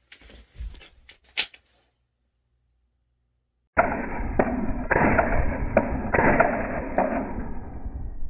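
A few light clicks and clatter at the start. About four seconds in, a loud, muffled, noisy recording begins, with several sharp reports at irregular intervals, consistent with a firearm being fired repeatedly.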